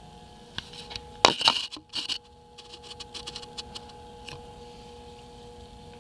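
Clattering and clicking of things being handled, loudest a little over a second in, followed by a quick run of light ticks, over a faint steady hum.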